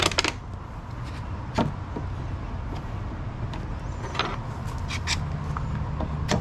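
A few separate sharp knocks and clicks, spread a second or more apart, over a steady low hum.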